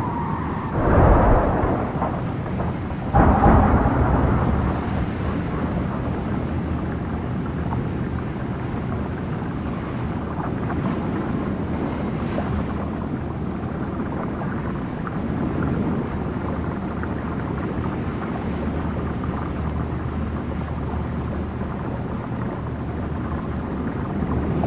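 Heavy machine engine running steadily under a loud rushing rumble, with two louder bursts about one second and three seconds in.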